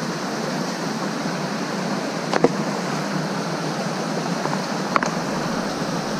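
Mountain creek rushing over rocks in a steady wash of water noise, with two sharp knocks about two and a half seconds apart.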